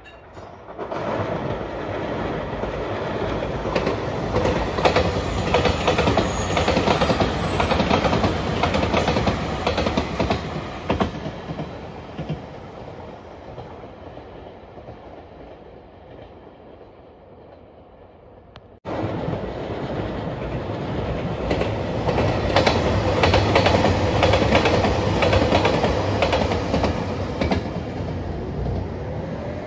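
A train running past on elevated track, its wheels clicking over the rail joints, fading away. After an abrupt cut about two-thirds of the way in, a JR Shikoku 2700 series diesel express train rolls past on the viaduct with the same clickety-clack of wheels on rail joints.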